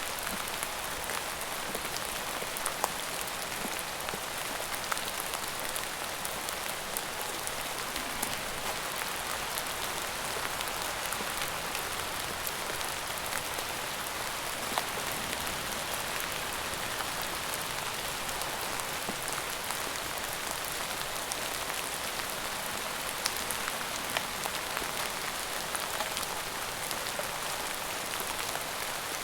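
Steady rain falling on a surface: an even hiss with scattered individual drops ticking sharply through it.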